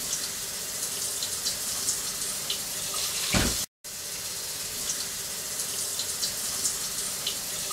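Kitchen tap running cold water into a bowl of hot hard-boiled eggs, a steady splashing hiss. A low thump comes about three and a half seconds in, just before the sound drops out for a moment.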